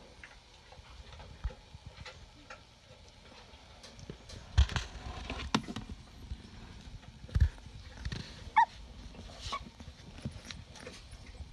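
Litter of young Rottweiler puppies shuffling and scuffling in a plastic box, with three dull knocks from about halfway on. A brief high squeak from a puppy comes with the last knock.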